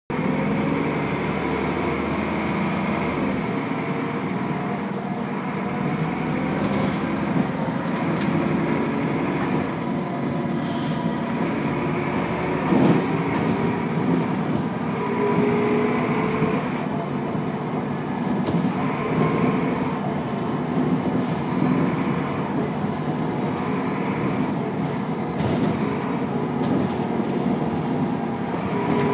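Steady engine and road noise inside a moving bus, with scattered clicks and rattles from the cabin and one louder knock about halfway through.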